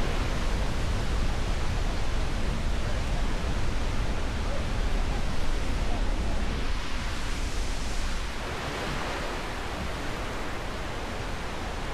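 Goðafoss, a wide horseshoe waterfall, giving a steady rush of falling water; it drops a little in level about eight seconds in.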